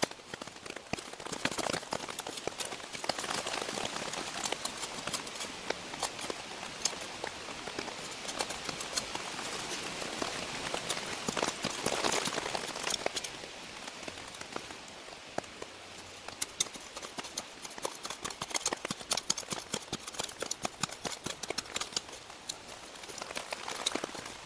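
Cold Steel shovel blade digging and scraping through soil and coarse sandstone, a busy run of short scrapes, chops and knocks, as an air channel is cut into a Dakota fire pit.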